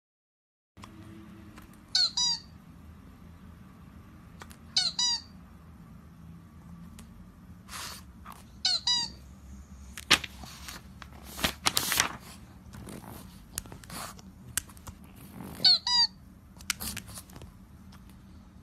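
Sets of two short, high, falling squeaks from a tablet game, repeating four times a few seconds apart, while a pug paws and noses at the screen; in the middle stretch its paws and snout tap and scrape against the tablet.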